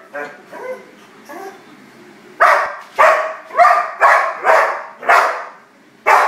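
German Shepherd-type dog giving a few soft whines, then barking about seven times in quick succession from a little over two seconds in: excited barking as it leaps at a light reflection on the wall.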